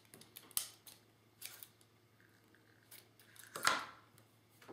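Scissors snipping through ribbon: several short, sharp cuts, the loudest about three and a half seconds in.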